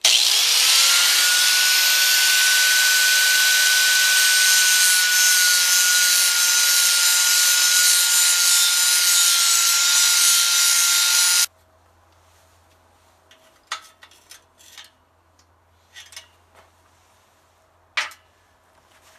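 Electric grinder spinning up with a rising whine, then grinding the sharp edges off small steel angle-iron tabs: a steady high whine over a harsh hiss. It stops abruptly about eleven seconds in, followed by a few faint clicks and knocks.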